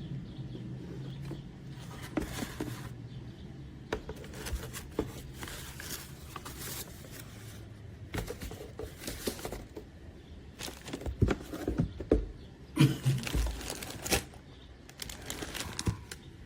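Objects being handled by hand: rustling with scattered clicks and knocks, the loudest knocks and thumps a little past the middle.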